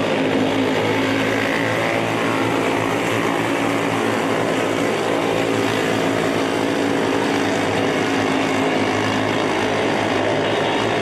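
A pack of junior sprint cars racing, their small engines running together in a steady, overlapping drone of several pitches that holds without a break.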